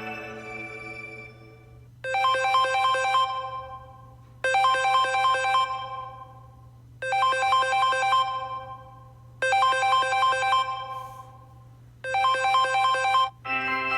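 Samsung Galaxy Note 10 ringtone: a short phrase of quick pitched notes, played five times about every two and a half seconds, each fading before the next. The tail of the previous ringtone fades out at the start, and the next ringtone begins just before the end.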